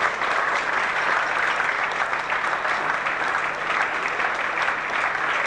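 Audience in a hall applauding, many hands clapping steadily.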